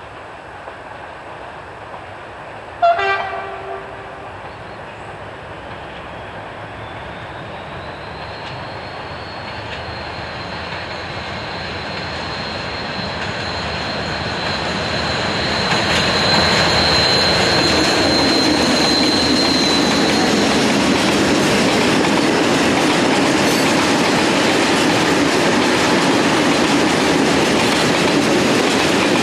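Two SNCF BB 66000 diesel-electric locomotives in multiple haul a heavy train of tank wagons, growing steadily louder as it approaches. A short horn blast comes about three seconds in, and a high steady whine is heard in the middle. From about halfway through, the tank wagons roll past close by with a loud, even rumble of wheels on rails.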